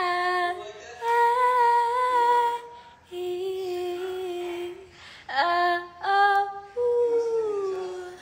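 A woman singing a slow, wordless melody unaccompanied, in long held notes over several short phrases; the last note glides downward near the end.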